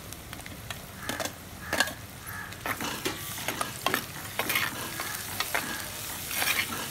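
Steel spoon scraping and knocking against a clay pot as tomato pieces are stirred into onions and green chillies frying in oil, over a steady sizzle. There are many sharp clicks, the loudest about two seconds in.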